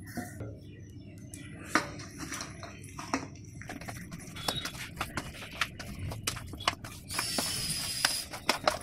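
Metal spoon mixing cut drumstick pieces into thick chilli pickle paste in a steel bowl: irregular clinks and knocks of the spoon and vegetable pieces against the steel, with a longer scrape near the end.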